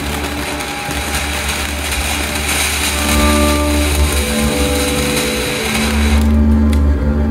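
Ground fountain firework (TNT Rain Dance) spraying sparks with a steady hiss; the hiss drops away about six seconds in as the fountain dies down. Background music with held notes plays throughout.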